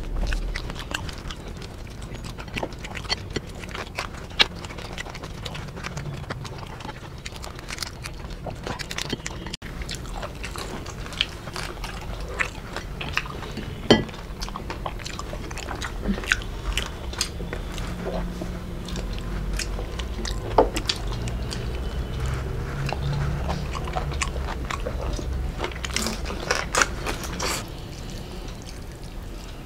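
Close-miked chewing and mouth sounds of people eating by hand: many short wet clicks, smacks and crunches scattered throughout.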